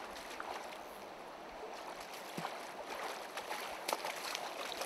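Shallow stream water running steadily, with a few small splashes from a trout thrashing in a landing net held in the water.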